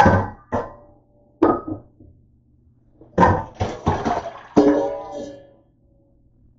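Kitchenware knocking and clattering on a counter in a run of sharp knocks, the last leaving a brief metallic ring, over a faint steady low hum.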